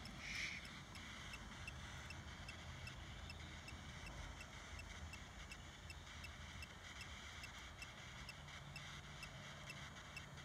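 Faint, steady electronic ticking, about two to three ticks a second, over a low hum, with a short beep just after the start.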